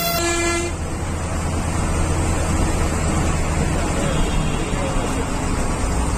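Bus engine and road noise heard from inside the bus: a steady low rumble under a hiss of tyres and wind. A horn sounds briefly and stops within the first second.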